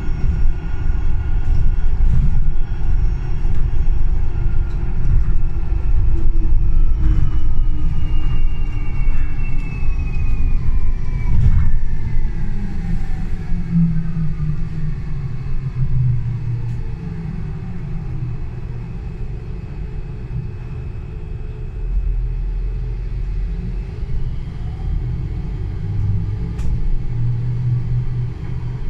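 Solaris Urbino 12 Hydrogen fuel-cell electric bus running, with a heavy low rumble and an electric drive whine that holds steady, then falls in pitch over about ten seconds as the bus slows. After that the sound settles to a quieter low hum.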